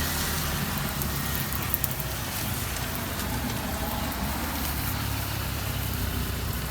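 Steady low rumble of motor traffic passing the street, with two small clicks about two seconds in.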